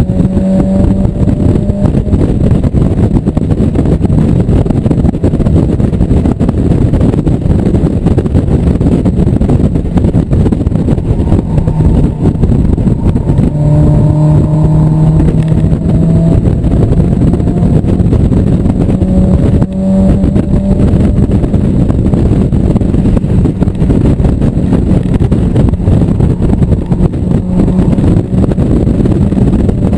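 1997 Mazda Miata's 1.8-litre four-cylinder engine running hard under load, heard from inside the open cockpit over heavy wind rush. The engine note climbs in places, sits lower for a couple of seconds around the middle, and drops briefly about two-thirds of the way through.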